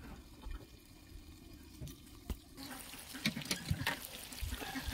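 Chicken pieces frying in oil in a steel wok, a steady sizzling hiss that comes in about halfway through, with a few spatula clinks against the pan.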